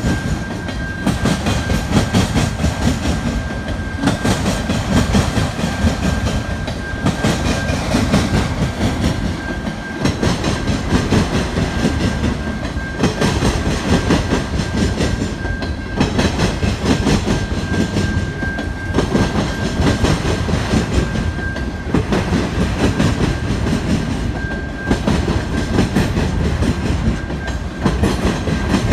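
Freight train of autorack cars rolling past: a steady rumble with the clickety-clack of wheels over the rail joints, and a thin high ring that comes and goes.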